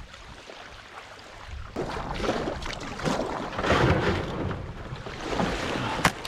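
A kayak coming ashore on a shell beach: low wind at first, then irregular rough swishes and scrapes of water and hull, with one sharp knock near the end.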